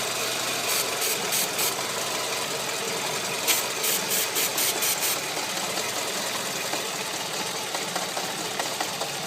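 Renault Megane 1.6 16v four-cylinder petrol engine idling steadily with a vacuum leak. Two runs of short hissing bursts break in over it, four quick ones about a second in and about seven more in the middle.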